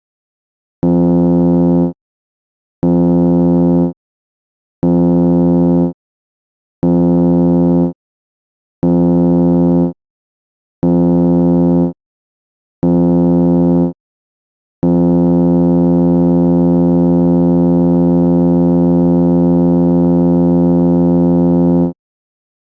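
Ship's general emergency alarm sounding its signal of seven short blasts and one long blast, a low buzzing horn tone: the call for all passengers and crew to go to their muster stations. The short blasts come every two seconds, and the long one lasts about seven seconds.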